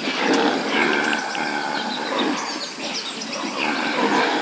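Wildlife recording offered as the sound of an antelope: a dense, continuous mix of many short animal calls and chirps.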